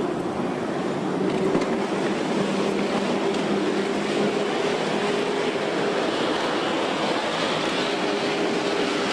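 Coast Guard 45-foot Response Boat-Medium running at speed: a steady engine drone under the loud rush and hiss of its bow wake and spray, the hiss growing a little brighter near the end.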